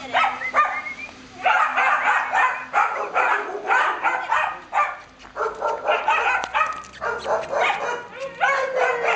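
Dogs barking and yipping: many short, high barks in quick runs with brief pauses between them.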